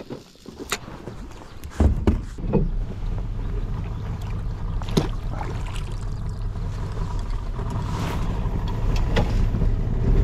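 A metal grapnel anchor hauled up out of the river on its rope and brought into the boat, with a few sharp knocks against the hull about two seconds in and scattered ones after. Under it, a steady low hum of a boat motor running, growing slightly louder toward the end.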